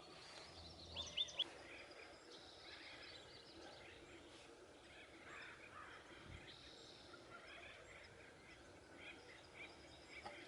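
Quiet outdoor ambience with birds calling faintly, including a quick run of three high chirps about a second in.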